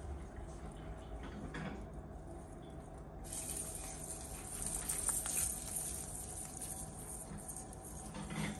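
Soft rustling and pattering of artificial Christmas tree branches as a kitten moves about inside the tree. A steady high hiss comes in suddenly about three seconds in.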